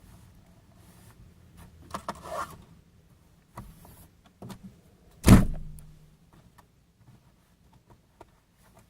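Small clicks and handling rustles, then one loud thump about five seconds in that rings briefly at a low pitch, followed by a few faint ticks.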